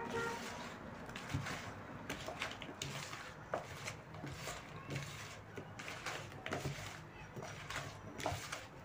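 A hand squishing and turning chunks of meat in marinade inside a plastic bucket, giving irregular small squelches and clicks.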